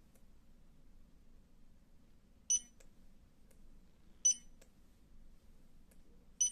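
Zebra 4608 handheld barcode scanner beeping three times, a short high beep each time, about two seconds apart; each beep signals a good read of the barcode on an Intel CPU.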